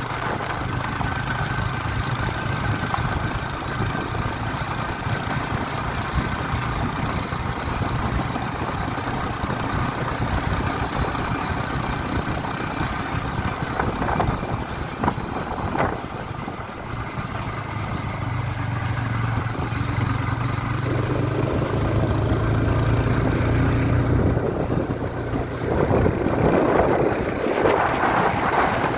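A vehicle engine running steadily while under way uphill, with wind noise on the microphone that grows louder near the end.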